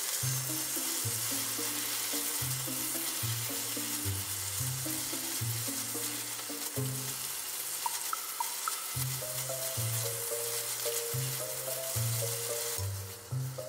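Sauce sizzling in a frying pan on high heat as meat-wrapped vegetable rolls are turned and coated in it, with background music playing along. The sizzling drops away shortly before the end.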